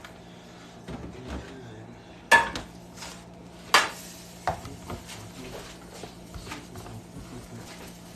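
A few sharp clacks and knocks of hard objects being handled, two of them louder than the rest, over a steady low hum.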